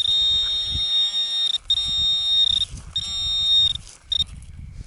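Minelab Equinox 800 metal detector giving its high, steady target tone: three beeps of about a second each and a short one near the end, as the coil passes back and forth over a shallow target. The signal comes from a beer bottle cap.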